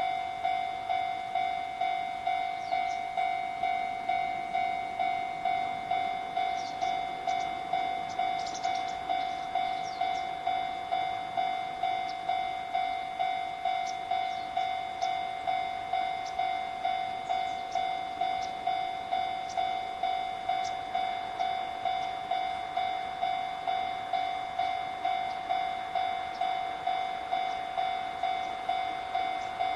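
Japanese level-crossing warning bell ringing steadily, an electronic ding repeated about one and a half to two times a second: the crossing is signalling an approaching train. The noise of the oncoming train grows faintly under it in the last third.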